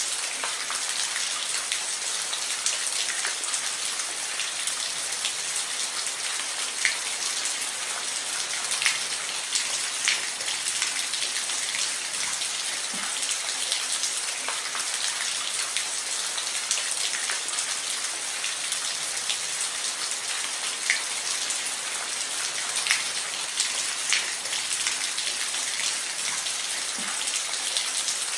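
Steady rain falling on a roof: an even hiss with scattered sharper drop impacts.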